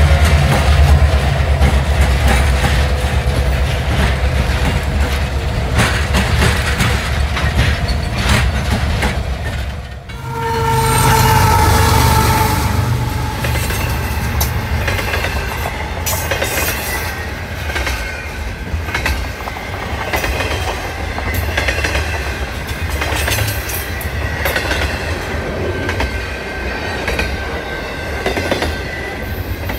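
Freight train passing at close range: a deep rumble, broken off suddenly about ten seconds in. Then a train horn sounds for about two seconds, its pitch sagging slightly, and double-stack container cars roll by with clacking wheels and a thin wheel squeal.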